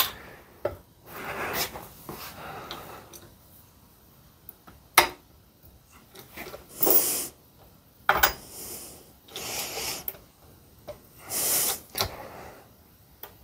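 Intermittent handling noises from a chain-hung hydraulic ram press on a harmonic balancer being adjusted: two sharp metal clicks and softer rubbing, between several short hissing bursts.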